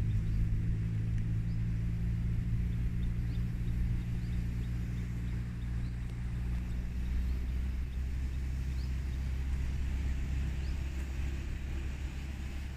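Subaru Forester's flat-four boxer engine running at low speed as the SUV crawls over rough grassy ground in X-mode: a steady low hum that drops in pitch about halfway through.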